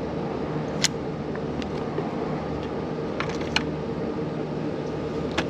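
Plastic key card pushed into and drawn out of a hotel door's card-slot lock: four short clicks, with no unlock sound, as the lock does not respond to the card. A steady mechanical hum runs underneath.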